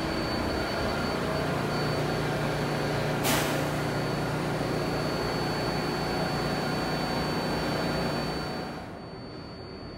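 R188 subway train standing at the platform with its doors open, its ventilation and onboard equipment running with a steady hum and a thin high whine. A short hiss about three seconds in, and the sound drops noticeably about a second before the end.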